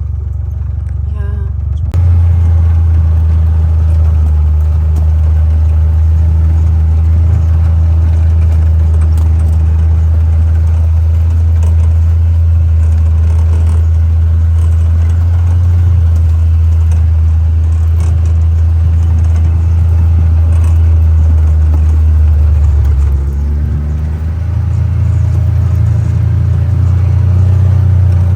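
John Deere Gator utility vehicle's engine running steadily while driving, with a strong low hum. It gets louder about two seconds in as it picks up speed, eases off briefly near the end, then picks up again.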